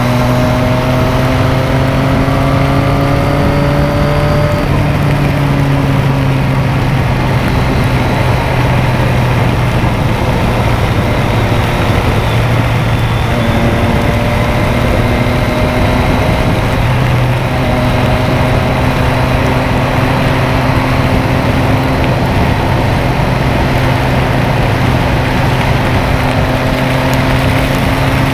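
Motorcycle engine running at highway speed under a heavy rush of wind. The engine note rises over the first few seconds, then holds fairly steady, climbing gently again in the later part.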